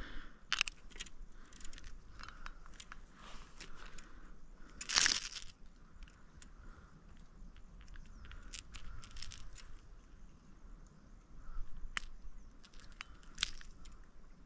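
Scattered small clicks and rustles of fishing gear being handled: a fish grip and lure worked by hand, with one louder rustling burst about five seconds in and a few sharper clicks near the end.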